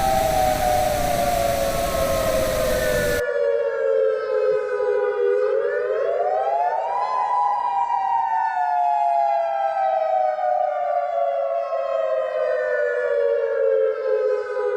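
Warning siren sounding a slow wail. Its pitch falls, climbs quickly about five seconds in, falls slowly again, and starts to climb once more at the very end. A loud hiss of static lies over it for the first three seconds.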